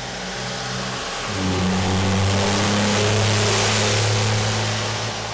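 Cummins diesel pickup engine accelerating. Its note steps up about a second in, under a loud rushing noise that builds through the middle and then eases off.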